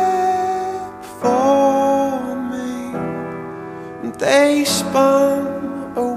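Slow, tender song with piano, its long held notes starting anew every few seconds.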